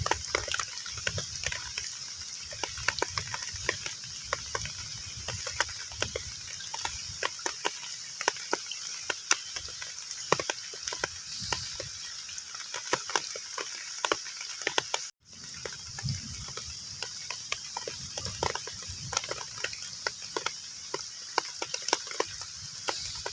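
Heavy rain falling on a pond's surface: a steady hiss with dense, irregular plinks and pats of drops hitting the water. The sound cuts out completely for a split second about fifteen seconds in, then comes straight back.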